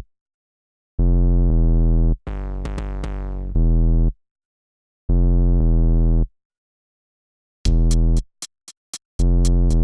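Electronic music: a deep, buzzing pitched note played in short stop-start blocks with silent gaps between them, a cluster of falling sweeps a little over two seconds in, and a quick run of sharp clicks near the end.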